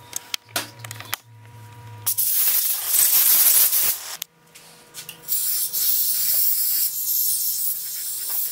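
A few handling clicks, then an aerosol cleaner sprays with a loud hiss for about two seconds. After a short pause, a compressed-air blow gun blasts steadily to the end. Both are blowing sand and grit out of an outboard's water pump housing.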